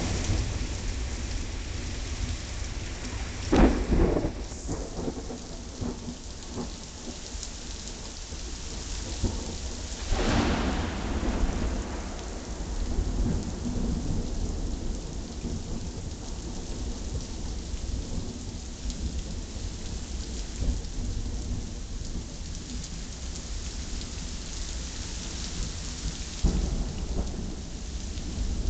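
Thunderstorm: rain falling steadily with thunder rumbling underneath. Loud thunderclaps come about four seconds in and about ten seconds in, and a weaker one near the end.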